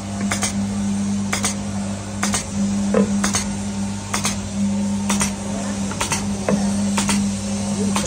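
Stainless steel loya (dough-ball) cutting machine running: a steady electric motor hum with a sharp metallic clack about once a second.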